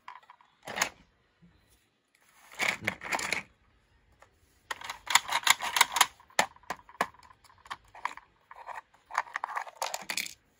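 Plastic toy play-set parts clicking and clattering in irregular bursts as a hand works the loading mechanism of a Thomas TrackMaster accessory building; the mechanism barely works.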